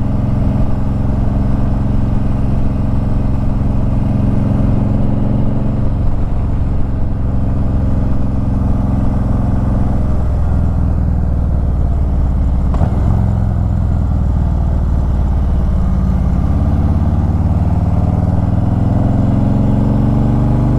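Harley-Davidson Ultra Limited's V-twin engine running under way, its note dropping in pitch about halfway through as the bike slows, then rising steadily near the end as it accelerates again.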